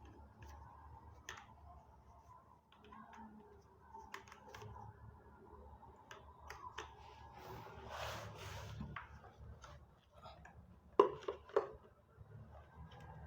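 Scattered light clicks and handling noises, with a soft rustle about eight seconds in and a short cluster of sharper knocks about eleven seconds in.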